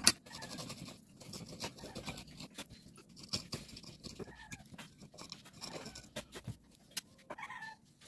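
Metal parts of a starter motor and a screwdriver being handled and set down on a workbench: scattered clicks and knocks, the sharpest just as it begins.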